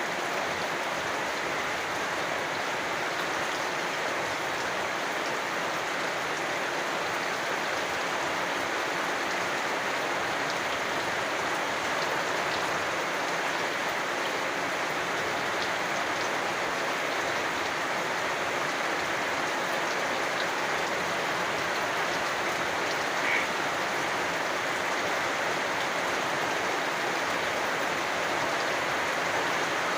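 Steady rain falling, with one short frog call about three-quarters of the way through.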